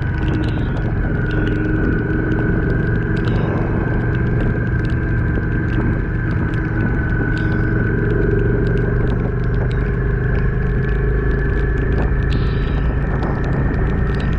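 Yamaha XV400 Virago's V-twin engine running steadily while riding at a constant speed, with low wind rumble on the microphone. Short sharp ticks throughout, from raindrops hitting the handlebar-mounted camera.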